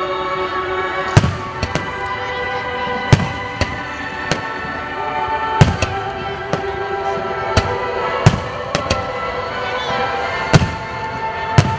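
Aerial firework shells bursting in a display finale: about a dozen sharp bangs at uneven intervals, some loud and close together, over music with long held tones.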